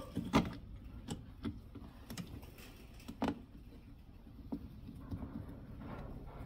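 Irregular light clicks and knocks of a plastic distributor cap being handled and seated onto a GM TBI distributor, with the sharpest knock a little past three seconds in.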